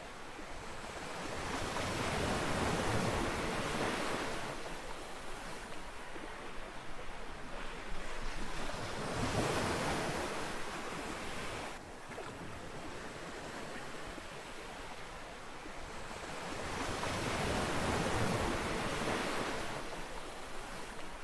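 Ocean waves breaking and washing up a beach: three slow surges of surf that swell and fade, the second cutting off abruptly about halfway through.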